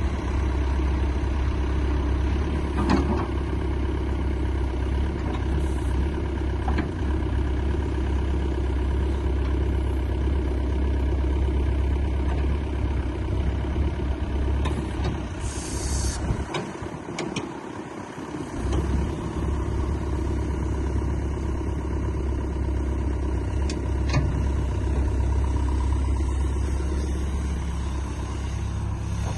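Hitachi ZX85USB-5A excavator's diesel engine running steadily at idle, with a few scattered knocks. There is a short hiss about sixteen seconds in, and the low drone drops away for about two seconds just after it.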